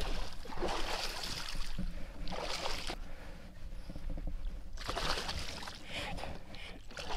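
Water splashing and sloshing around a small fishing kayak in three bursts of a second or so each, with quieter stretches between.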